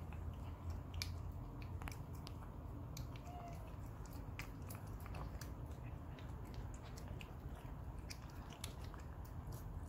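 Cat licking a lickable paste treat from a squeeze tube, making irregular wet smacking clicks with its tongue and mouth.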